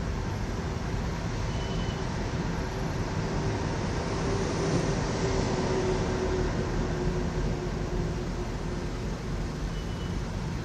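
Steady rumbling noise of a vehicle in motion crossing the Williamsburg Bridge, with a faint low hum swelling near the middle.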